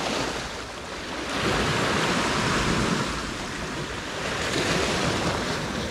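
Sea surf washing against a rocky shore: a steady rush of water that swells twice.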